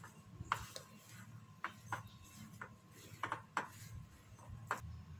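Hand kneading mashed potato and flour in a ceramic bowl: faint, irregular small clicks and taps as the fingers work the mixture against the bowl.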